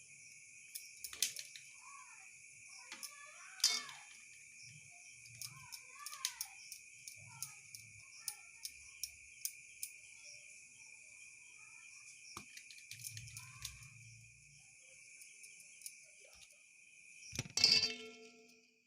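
Steady, high-pitched chirring of crickets, with scattered sharp clicks and knocks over it and a louder clatter near the end.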